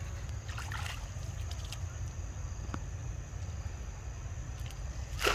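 Steady low rumble of wind on the microphone, with a few faint brief sounds and a short louder noise just before the end.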